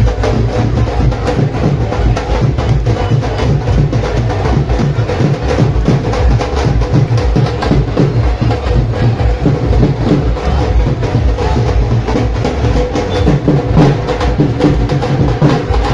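Loud music driven by fast, dense drumming and percussion, played without a break.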